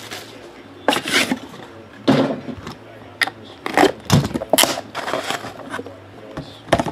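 Cardboard trading-card hobby box being opened by hand: a series of scrapes, rustles and knocks as the taped lid is worked loose and lifted off.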